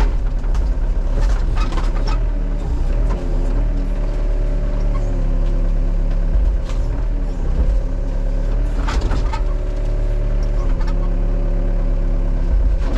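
Excavator diesel engine running under load, its hydraulic whine rising and falling in pitch as the arm and bucket work. A few sharp knocks and cracks stand out, about a second in and again near nine seconds.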